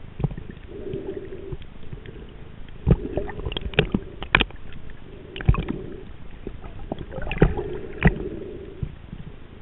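Underwater sound of a snorkeler swimming with a head-mounted camera: muffled breathing through the snorkel that swells and fades every second or two, with sharp clicks and knocks of moving water in between.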